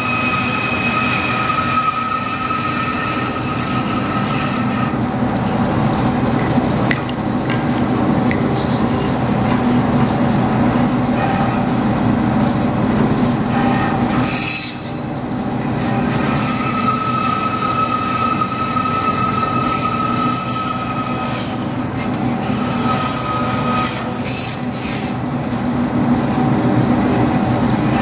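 DoAll vertical bandsaw cutting slots into a thick aluminum disc. The blade runs continuously with a squealing ring that comes and goes as the work is fed, dipping briefly about halfway through.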